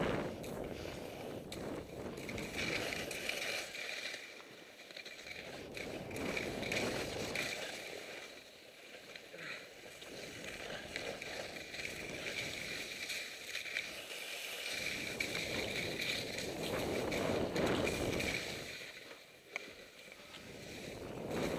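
Skis hissing and scraping through snow, with wind rushing over the microphone. The sound swells and fades every few seconds as the skier turns.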